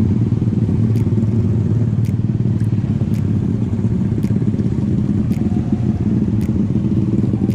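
Honda RS150R motorcycle's single-cylinder engine running at a steady pace on the move.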